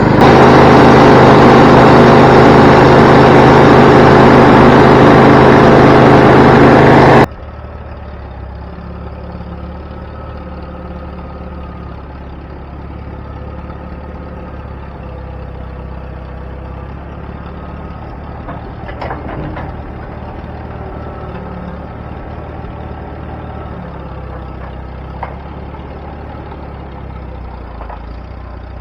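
Wood-Mizer LT20 band sawmill's engine running loud and hard for about seven seconds. It then cuts off abruptly into a much quieter, steady engine idle.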